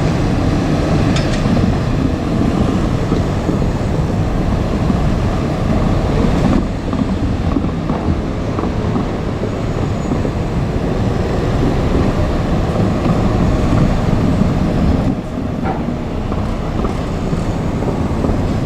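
JR Kyushu 817 series electric multiple unit running, a steady loud rumble of train running noise with small abrupt shifts about six and fifteen seconds in.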